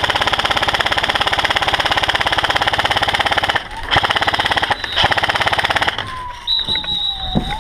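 Airsoft gun firing on full auto: one long rapid burst, then two shorter bursts about four and five seconds in. After the bursts, a fainter whistling tone dips and rises.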